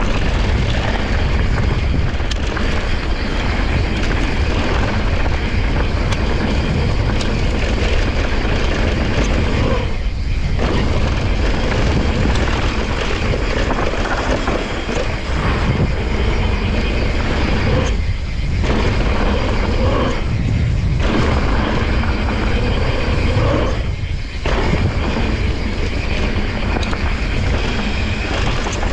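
Wind buffeting a handlebar-mounted action camera's microphone as a Santa Cruz Nomad mountain bike rides down a dirt trail at speed, its tyres rolling on loose dirt. The rumbling noise dips briefly about four times.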